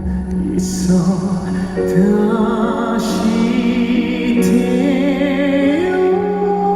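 Music: a melody with wavering, vibrato-like notes over a steady low sustained tone, with no words.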